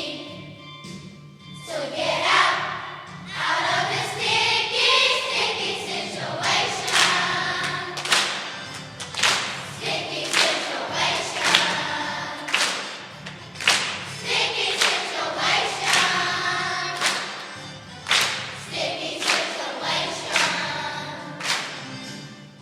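A children's choir singing a Christmas song in unison over an instrumental accompaniment with a steady beat.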